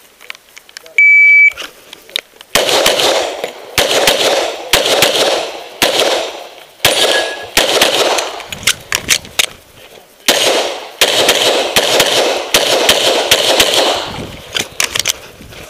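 An electronic shot timer gives one steady high beep about a second in, the start signal for a timed IPSC stage, then a semi-automatic pistol fires in rapid strings of shots with short pauses between them, where the shooter reloads.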